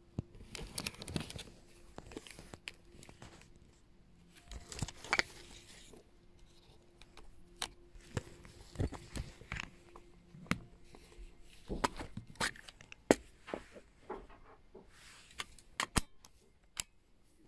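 Handling noise from a Canon AV-1 35mm film camera being moved about by hand on fabric: irregular clicks, taps and rustles, with the sharpest click about thirteen seconds in.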